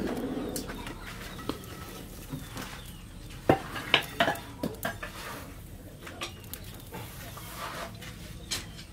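Sharp metallic clanks of blacksmith's tongs and hot leaf-spring steel knocking on a steel anvil. There is a quick run of about five clanks a few seconds in and a single one near the end.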